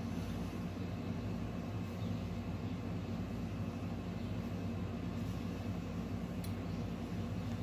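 Steady low mechanical hum of the room's background drone, even in level with no strokes or changes.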